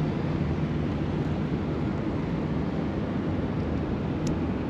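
Steady outdoor rumble with wind noise and a faint low hum, and one short click about four seconds in.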